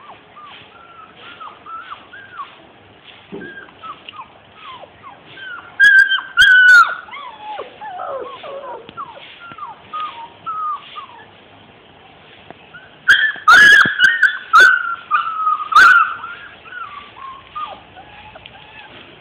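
Labrador puppies whining and whimpering over and over in short, high, falling cries, breaking into a few very loud yelps about six seconds in and again between about thirteen and sixteen seconds.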